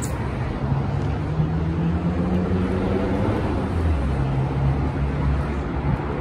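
Street traffic: car engines running and passing, a steady low hum with engine pitch that shifts now and then.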